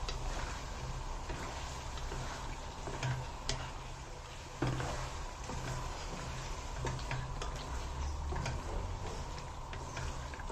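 Wooden spoon scraping and knocking against a steel karahi while taro pieces and mutton are stirred and fried in oil, with irregular clicks over a steady frying hiss. The sharpest knocks come about three and a half and four and a half seconds in.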